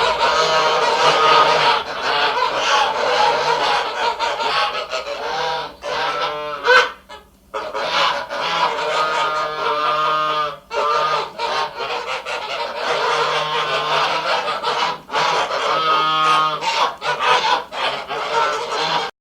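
Ducks quacking continuously, many calls overlapping, with a brief lull about seven seconds in.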